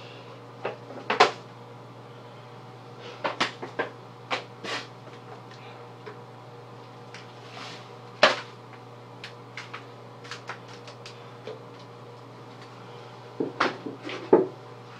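Scattered short knocks, rustles and squishes from shaving-cream pies and their plates being handled, the loudest about a second in and about eight seconds in, with a cluster near the end. A steady low hum runs underneath.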